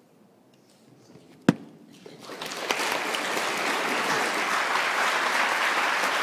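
A single sharp knock about a second and a half in, then an audience applauding, building quickly and going on steadily.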